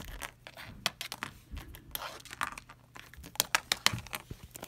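Small plastic Littlest Pet Shop figurines and accessories clicking and tapping as a hand moves them and sets them down on a wooden surface: scattered light taps, with a quicker run of clicks a little after three seconds in.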